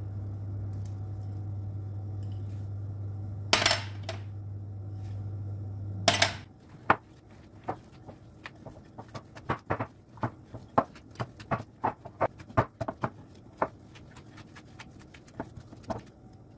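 A small kitchen appliance's motor hums steadily with two loud rushes, then stops about six seconds in. Irregular clinks and taps of utensils on dishes follow, a few each second.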